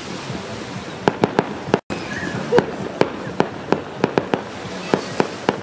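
Fireworks display: aerial shells bursting in an irregular string of sharp bangs, starting about a second in, over a steady background hiss.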